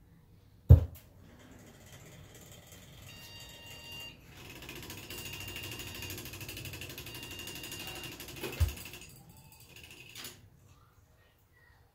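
A desktop PC is switched on with a sharp click, and its fans, including a newly fitted Enermax ETS-T40 CPU cooler fan, spin up to a steady, fairly quiet whir with a faint high whine. A second sharp knock comes near the end, and the fan noise then dies away.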